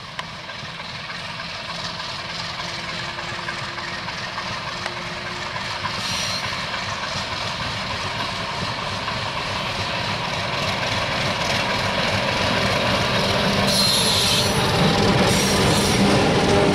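Train running on the rails, steadily growing louder, with brief high-pitched wheel squeals about six seconds in and again near the end.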